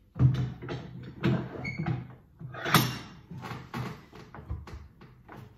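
A run of irregular wooden knocks and clunks as a snooker cushion rail is shifted into place and clamped in a vise, with a short squeak or two early on.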